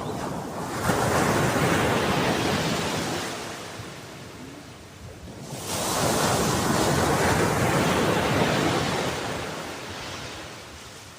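Sea waves surging in and ebbing away, two in a row: each swell builds quickly, holds for a few seconds and fades out, the second rising about halfway through.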